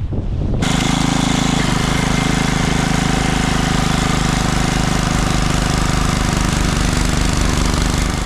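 Wind buffeting the microphone, then about half a second in a small engine starts up loudly and runs steadily at speed with a fast, even pulse.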